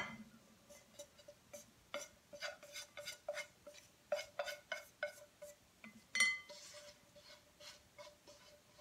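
Wooden chopsticks tapping and scraping against a frying pan as stir-fried filling is pushed out into a glass bowl: a string of light, irregular clicks, with one louder clack about six seconds in.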